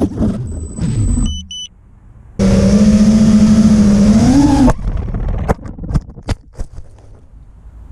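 FPV racing drone's brushless motors whining and shifting pitch with the throttle, with a few short high beeps about a second in. After a brief dip the motors give a loud steady whine that rises slightly and then cuts off abruptly. Several sharp clicks and knocks follow.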